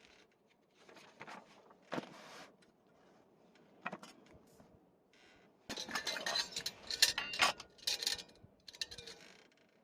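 Small objects being handled: scattered knocks, rustling and light clinks, busiest from about six to eight and a half seconds in.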